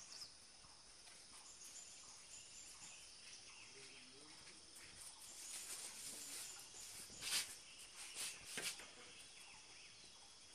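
Faint high chirping of insects and birds in the background, with three short, sharp wooden knocks near the end from the bars of a backstrap loom being worked.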